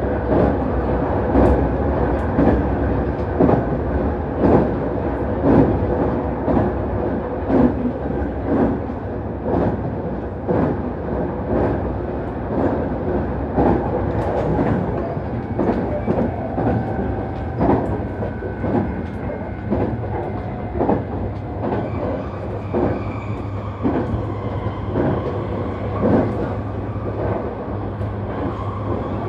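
Nankai Main Line express electric train running, heard from inside a passenger car: a steady rumble with the wheels clacking over rail joints about once a second.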